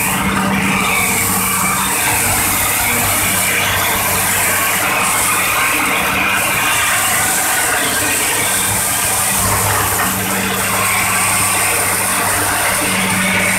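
Diesel engine of an orange Hitachi hydraulic excavator running steadily, loud and close, with a steady low hum and mechanical noise over it.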